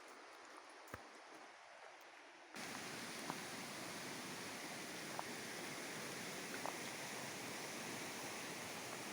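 Steady rush of flowing water. It cuts in abruptly about two and a half seconds in, after a quiet stretch with a few faint clicks.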